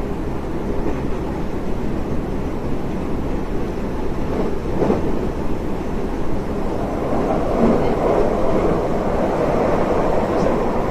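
Running noise of a local passenger train heard from inside the carriage: a steady rumble of wheels on rail, with a brief knock about five seconds in and growing louder in the second half.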